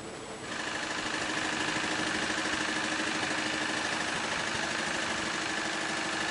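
An engine or motor running steadily, giving a high whine and a lower hum over a hiss. It cuts in abruptly about half a second in.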